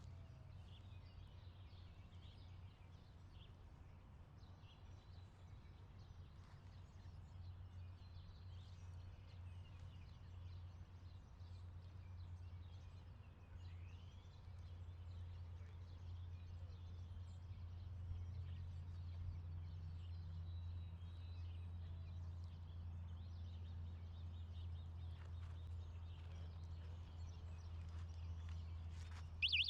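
Faint outdoor ambience: a steady low rumble with scattered distant bird chirps, and a short, sharper chirp right at the end.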